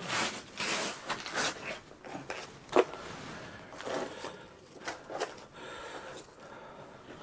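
Irregular rustling and scraping from a freshly caught fish being handled and laid out to be measured, with a sharp knock a little under three seconds in.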